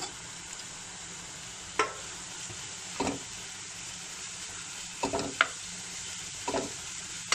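Samosa filling of shredded chicken, onion and mashed potato sizzling steadily in a frying pan. A spoon stirring it knocks and scrapes against the pan about six times.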